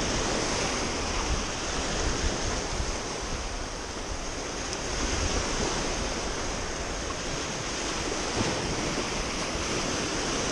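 Small sea waves breaking and washing over a pebble and rock shoreline, a continuous rushing surf sound that swells and eases as each wave comes in.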